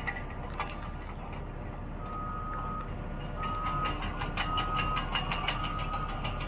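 Caterpillar D6T XL dozer's backup alarm beeping about once a second, starting about two seconds in, as the dozer reverses. It sounds over a steady diesel engine rumble and a rapid metallic clatter.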